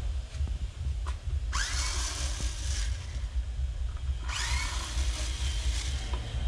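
Power drill whirring in two short runs, each spinning up with a rising whine, about a second and a half in and again about four seconds in, over a steady low rumble.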